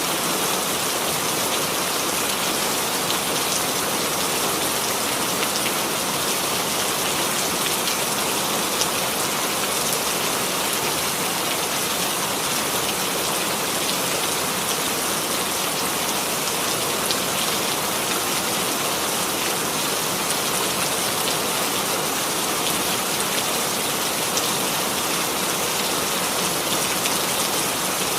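Steady rain falling on a surface, a dense, even hiss of drops with small individual drop ticks scattered through it.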